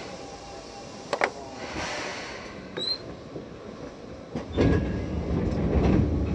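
Inside a Seibu 2000 series electric train standing at a station: low background noise from the car, a sharp clunk about a second in, and a louder low rumble that starts about four and a half seconds in.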